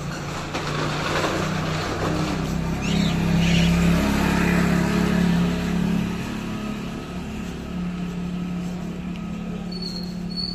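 A motorcycle engine running steadily, growing louder as it passes close by in the middle, then easing off as it rides away.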